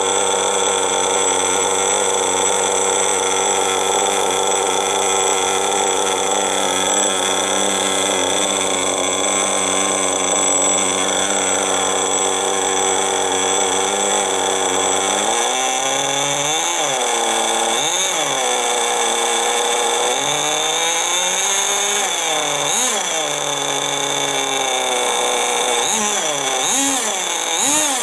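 Veco .21 two-stroke glow (nitro) engine of a vintage Kyosho Baja Body RC buggy running at a steady speed for about fifteen seconds, then revved in a series of quick throttle blips, each rising and falling in pitch.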